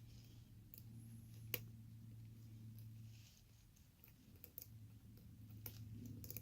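Faint, scattered metallic clicks of a lock pick and tension wrench working the pins inside an ABUS 83/55 padlock cylinder, the sharpest about a second and a half in, over a low steady hum.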